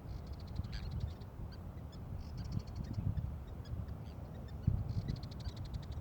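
A small bird's rapid high trill, repeated three times, over a low rumble of wind on the microphone.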